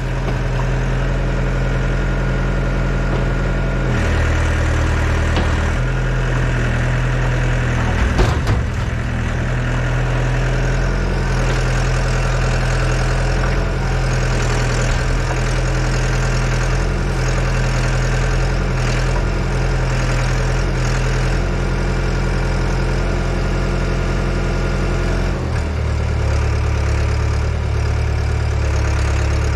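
Yanmar Vio80 excavator's diesel engine running steadily, its note shifting a few times, with a brief clatter about eight seconds in.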